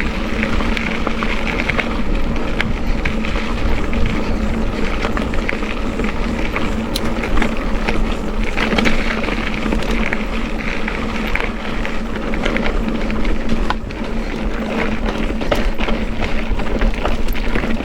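Steady rumble of riding at speed, with wind buffeting the microphone and a faint steady hum underneath.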